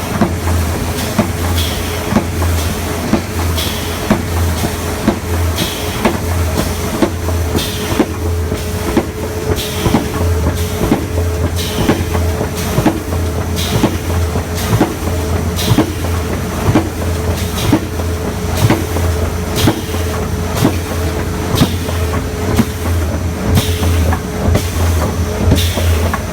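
Corrugated-board laminating, flipping and feeding line running: a steady low motor hum with a constant mid tone under frequent sharp clacks of the sheet-handling mechanism, and short hisses every second or two.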